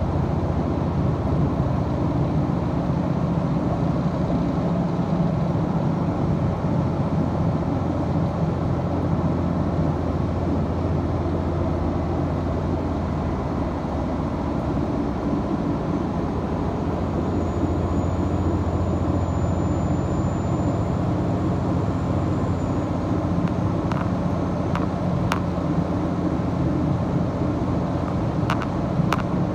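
Diesel engines and running noise of the Hokuto limited-express diesel train, heard inside the passenger cabin as a steady drone while the train runs. A few short clicks come near the end.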